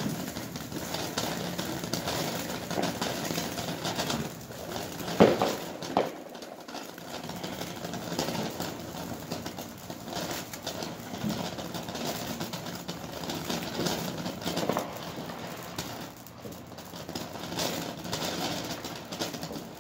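Firework fountain spraying sparks: a steady rushing hiss with fine crackling throughout, and a couple of sharper pops about five and six seconds in.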